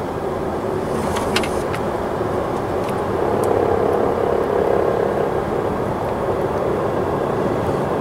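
Road and tyre noise inside a Genesis G70's cabin, picked up in the front passenger footwell while the car takes a left-hand turn at speed, with a few light ticks about a second in. A soft rattle from the right front corner, which the technician pins on the right front knuckle, wheel bearing or drive shaft and takes for a worn wheel bearing.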